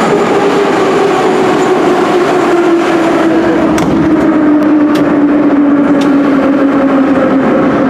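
Ezh3/Em-508T metro train running, a steady hum slowly falling in pitch, with a few sharp clicks about four to six seconds in.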